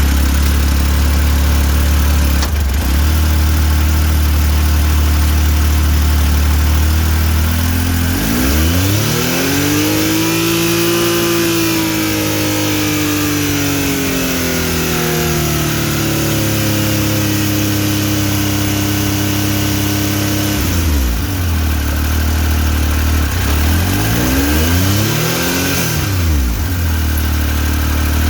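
2016 Yamaha YXZ1000R side-by-side's three-cylinder engine and drivetrain running steadily at first, then revving up about eight seconds in and slowly easing off, followed by quick rev blips near the end. The owner is showing a drive shaft noise that appears under power.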